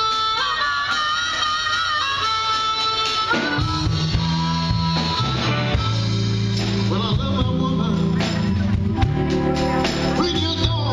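Live blues-rock band playing the song's intro: a few held lead notes alone at first, then bass and drums come in about three seconds in and the full band plays on.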